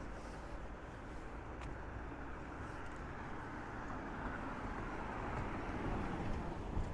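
A car driving past on the road beside the pavement, its tyre and engine noise swelling as it approaches and peaking as it passes about six seconds in, over a steady low outdoor rumble.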